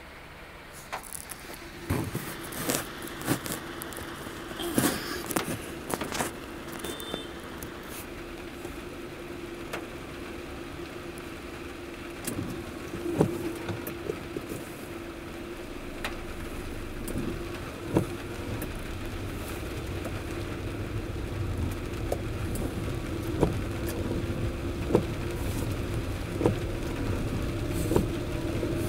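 Car driving in monsoon rain: a steady engine and road hum that grows gradually louder as it goes, with irregular sharp taps of raindrops on the car.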